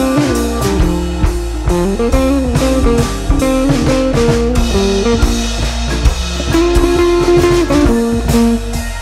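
Background music: guitar over a drum kit, with a steady beat.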